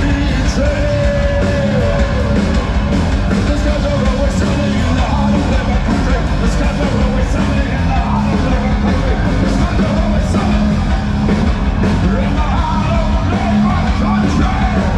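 Live hard rock band playing loud: drums with crashing cymbals, guitars and bass, and a shouted lead vocal, heard from among the audience.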